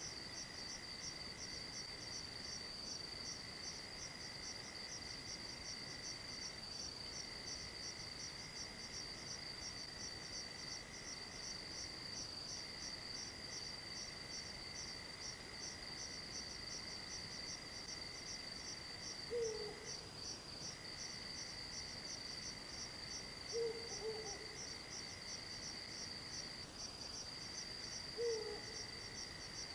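An owl hoots three times in the second half, short low hoots about four seconds apart, over a steady chorus of night insects trilling high and continuously.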